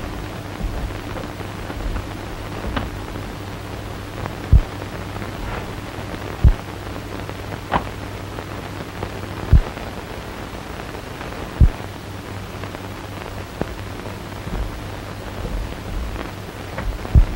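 Hiss and a steady low hum from an old film soundtrack, with four dull low thumps a few seconds apart and a single click.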